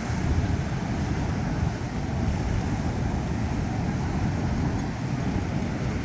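Wind rumbling steadily on the microphone, mixed with the wash of ocean surf.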